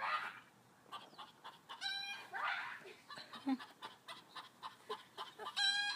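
Chicken squawking in three or four short, sharp calls a couple of seconds apart.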